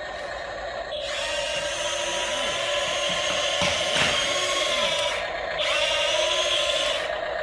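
Small electric motors of radio-controlled construction machines whining over a steady hum. The whine climbs about a second in, drops briefly just after five seconds, then rises again.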